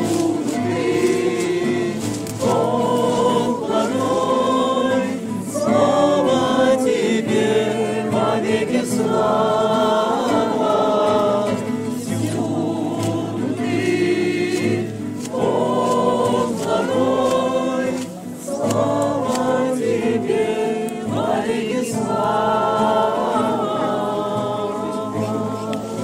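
A mixed group of voices singing a Russian Christian hymn together in phrases, accompanied by a strummed acoustic guitar.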